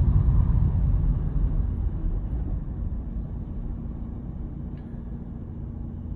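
Low rumbling noise that slowly fades.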